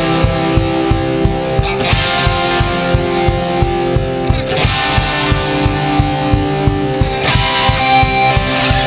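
Background music: sustained chords over a steady beat.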